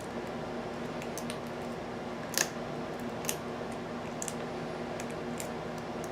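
Small metallic clicks and ticks of a hook pick working the pin stack of an American Series 700 padlock's cylinder under a tension wrench, with a sharper click about two and a half seconds in and another about a second later. A steady low hum runs underneath.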